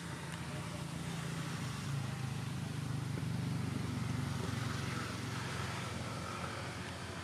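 Low, steady engine hum of a motor vehicle, swelling towards the middle and easing off towards the end.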